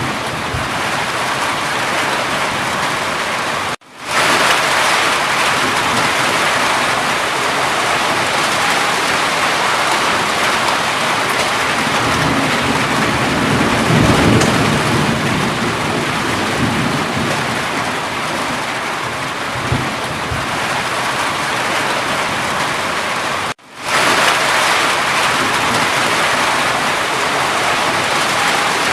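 Steady heavy rain, with a low rumble of thunder swelling and fading about halfway through. The sound cuts out abruptly for a moment twice, about four seconds in and again some twenty seconds later.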